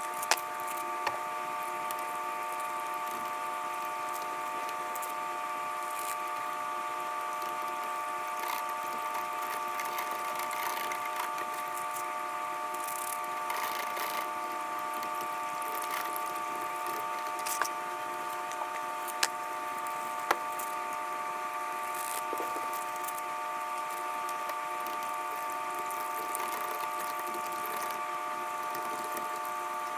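A steady mechanical whine made of several fixed pitches, unchanging throughout, like a running electric motor, with scattered light clicks and taps from a wire whisk stirring gelatin in a plastic tub of water.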